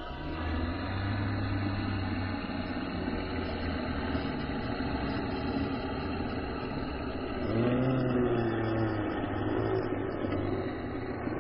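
A low, steady rumbling drone under a dense, noisy layer; about seven and a half seconds in, a wavering pitched tone slides up and down for a second or so, then fades.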